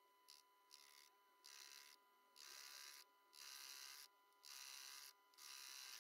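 Near silence: only faint hissy bursts about once a second, each under a second long, over a faint steady tone.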